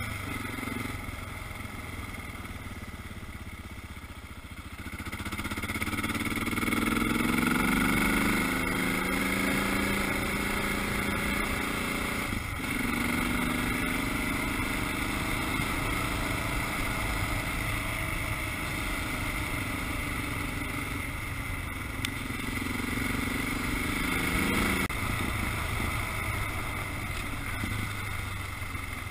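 Dual-sport motorcycle engine running while being ridden. It revs up about five seconds in, and its pitch shifts abruptly twice as the ride goes on, over wind rumble on the microphone.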